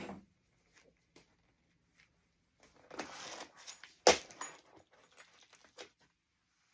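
Small objects being handled on a worktable: a short rustle about three seconds in, then one sharp click a second later and a few light taps, as snap parts and a plastic storage case are handled.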